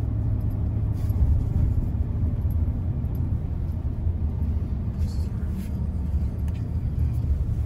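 Vehicle driving, heard from inside the cab: a steady low rumble of engine and road noise.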